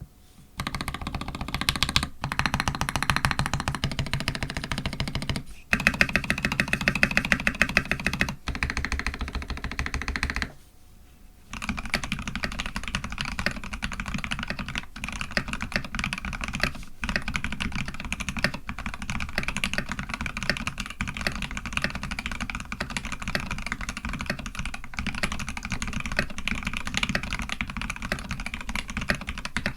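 Typing on a custom EO87 mechanical keyboard with lubed Polaris Gray switches, TX films and a brass plate: fast, dense keystrokes that stop for about a second near the middle and then resume steadily.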